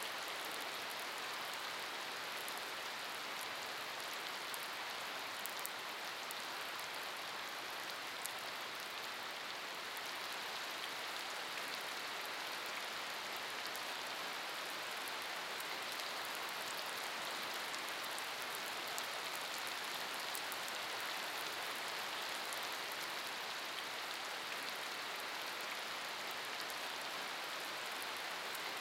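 Steady rain falling on wet pavement and shallow puddles: an even hiss of many drops, with the small ticks of single splashes over it.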